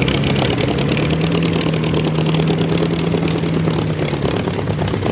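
1916 Sturtevant supercharged 555 cubic-inch aluminium V8 aero engine running in the Romano Special race car as it drives off slowly. Its note rises a little about a second in, holds steady, and falls back near the end.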